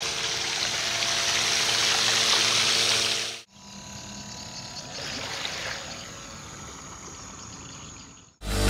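Electric RC water-jet drive running, its pump blasting out a hissing stream of water over a steady electric-motor whine. About three and a half seconds in it cuts to a quieter, more distant hiss of the jet as the boat runs off across the water.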